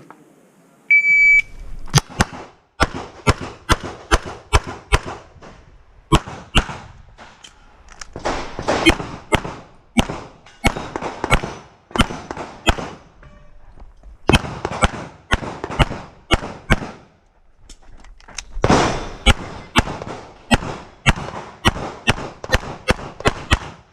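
Electronic shot timer's start beep, then strings of rapid pistol shots from a 9mm CZ Shadow 2, fired in bursts with short pauses between them.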